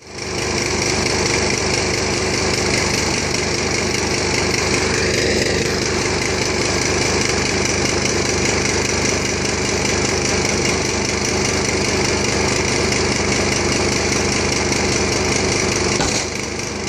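Small engine running steadily, powering the hydraulics of a tow-behind backhoe. It dips briefly near the end.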